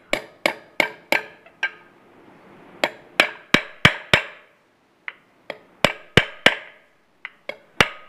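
Light taps of a steel washing-machine axle knocking a new seal into the hub of the rotor plate, seating it evenly all round. The taps come in short runs of about three a second, with brief pauses between runs.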